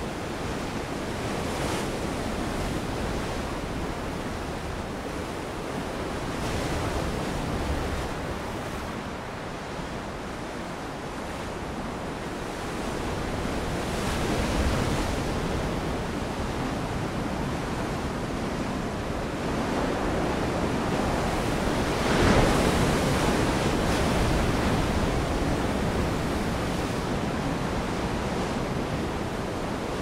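Ocean surf breaking: a continuous rushing wash of waves that swells and eases every few seconds, with its loudest surge about two-thirds of the way through.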